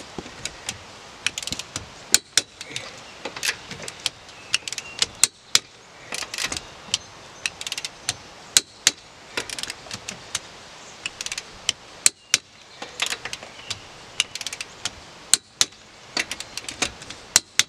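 Torque wrench tightening a car wheel's lug nuts to 115 foot-pounds: quick ratcheting clicks between sharper single clicks, repeated irregularly as it moves from nut to nut.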